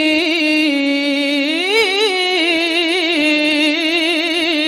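A woman's voice in melodic Quran recitation, holding one long ornamented note without a breath. The line wavers throughout, climbs and falls back about halfway through, then stops at the very end.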